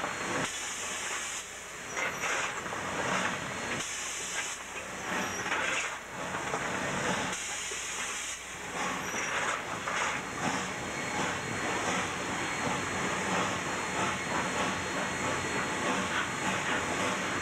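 Cab noise of a K-36 narrow-gauge steam locomotive working under load: a steady hiss of steam over the running of the engine, with the steam hiss swelling louder three times in the first half, each swell lasting about a second.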